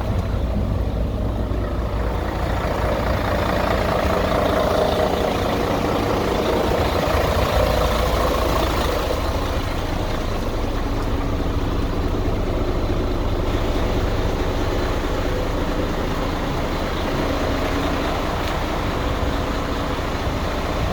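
Heavy truck diesel engine idling steadily, with a deep rumble.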